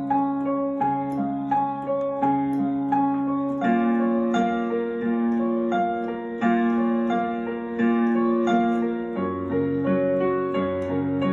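Piano sound played on a keyboard: a C# major chord progression broken into arpeggios, the right hand running steadily through each chord's notes over held left-hand bass notes. The chord changes about four seconds in and again about nine seconds in.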